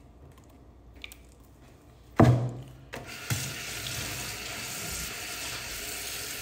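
A sharp thud about two seconds in, then a kitchen faucet turned on and running steadily into the sink.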